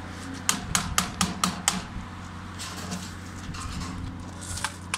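Sharp metallic clicks from hand-tool work on sheet-metal ductwork: a quick run of about six, roughly four a second, then a few scattered ones, over a steady low hum.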